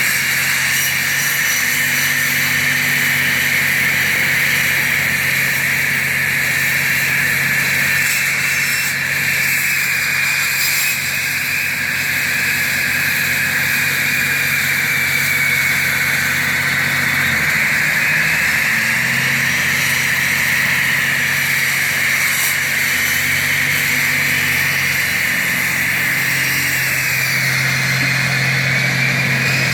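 Concrete floor saw running steadily, its diamond blade cutting into a concrete floor: a high, steady whine over the low drone of the saw's engine.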